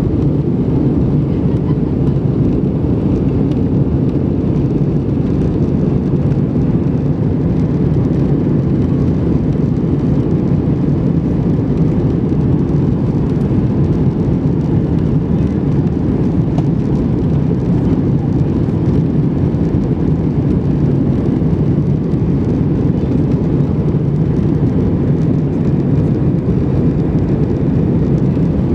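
Steady low rumble inside the cabin of an Airbus A320-200 in flight: engine and airflow noise, unchanging throughout.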